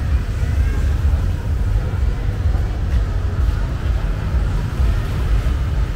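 Outdoor street noise: a loud, uneven low rumble, with faint voices in the background.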